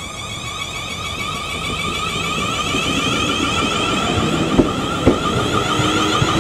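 Class 450 Desiro electric multiple unit pulling away, its traction inverters giving a whine of several steady tones that slowly grow louder. From about four and a half seconds in, its wheels start clicking over rail joints.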